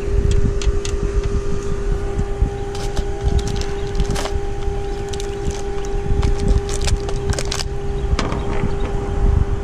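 Small metal sockets clicking and clinking as they are handled in and pulled from a plastic socket-set case. Under the clicks runs a steady hum at one pitch and a low rumble.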